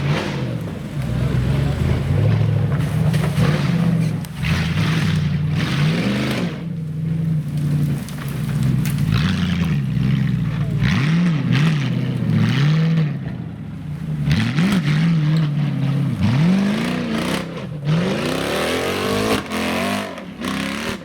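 Off-road 4x4 engine under heavy load, running hard at first, then revving up and dropping back again and again through the second half.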